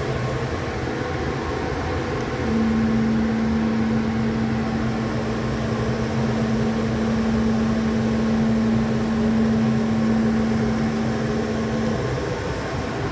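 CNC cutting machine running with a steady mechanical drone, joined by a steady humming tone that starts about two and a half seconds in and stops near the end.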